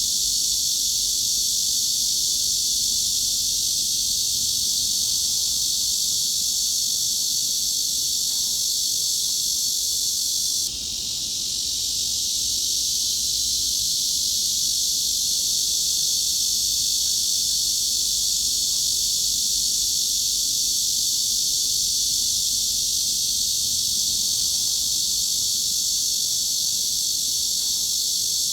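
Cicadas droning in a steady, continuous high-pitched buzz with no pauses. About a third of the way in, the sound drops suddenly and swells back over a second or two.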